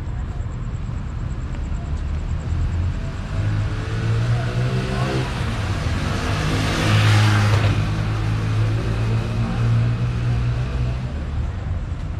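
A car driving past on the street, its engine hum and tyre noise building to loudest about seven seconds in, then fading.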